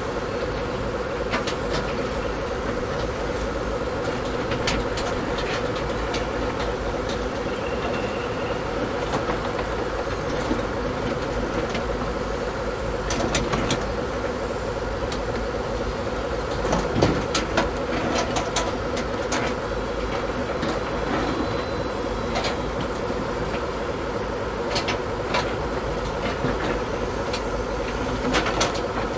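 Small electric motors of radio-controlled construction models running steadily, a constant whine, with scattered clicks and knocks, a cluster of them about halfway through and another near the end.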